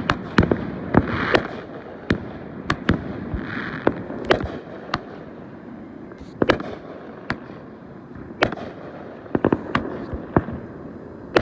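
Fireworks going off: a string of sharp bangs at irregular intervals, several close together near the end, over a steady rushing background, with brief hissing crackles between the reports.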